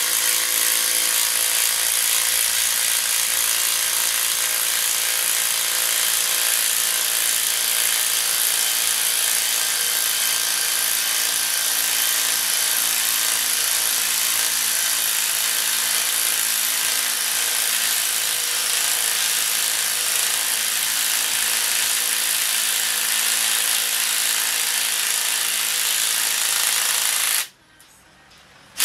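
Two DeWALT cordless impact drivers running together, their hammer mechanisms rattling steadily as they drive long fasteners into a wooden log. The noise stops abruptly near the end.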